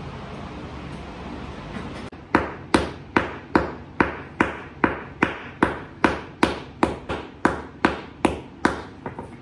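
A small hammer striking a concrete floor along a crack: a steady run of sharp, ringing taps, about two and a half a second, starting about two seconds in.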